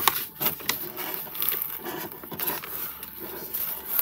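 Rustling and small irregular clicks and knocks of items being handled and packed back into a subscription box.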